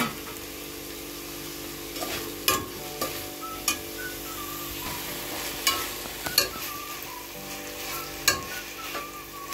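Metal spoon stirring shredded carrots and cabbage in a stainless steel pot, with a light sizzle from the vegetables and a few sharp clinks of the spoon against the pot.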